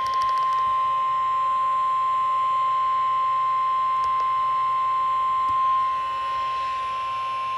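NOAA Weather Radio warning alarm tone: a single steady high-pitched tone of about 1050 Hz, held unbroken. It signals that a warning, here a tornado warning, is about to be read.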